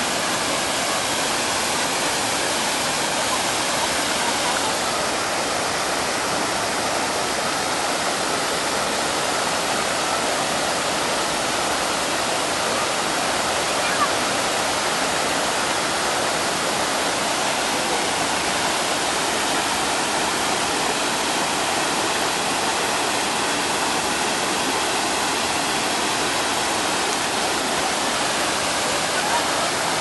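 Water falling in a wide sheet over the crest of a low dam and churning over the rocks below, a steady, unbroken rush.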